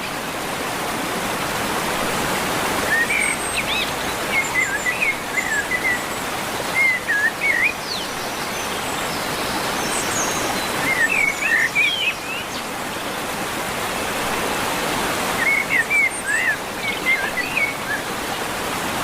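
Steady rush of a mountain river, with a songbird singing short chirping phrases over it every few seconds.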